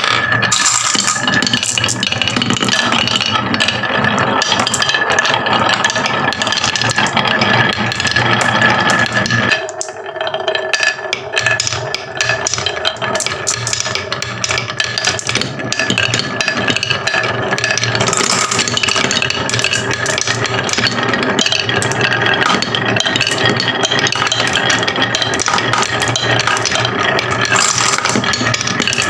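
Marbles rattling and clattering as they roll down a marble run track, a dense run of clicks that thins briefly about ten seconds in and then picks up again.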